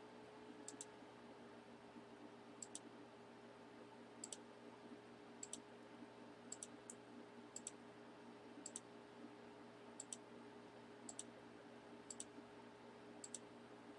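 Faint clicking at a computer, about one click a second, some in quick pairs, over a low steady hum.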